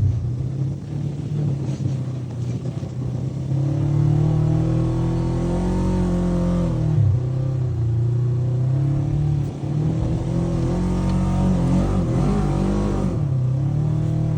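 Polaris RZR 900 UTV's twin-cylinder engine under changing throttle, its pitch rising and falling as it revs, with short drops about seven and nine and a half seconds in where the throttle eases.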